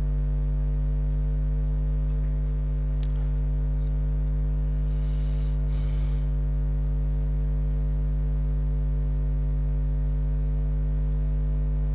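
Steady low electrical mains hum with a buzzy edge, unchanging throughout.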